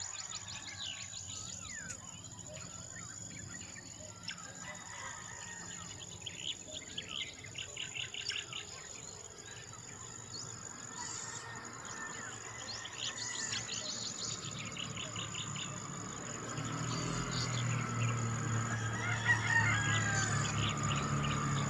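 Farmyard dawn chorus: small birds chirping in quick repeated trills and roosters calling, over a steady high-pitched insect drone. In the last few seconds a low engine hum comes in and grows louder.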